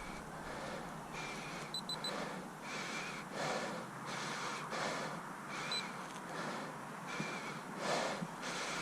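A person breathing hard, in and out at a steady pace of roughly one breath a second, some breaths ending in a faint whistle.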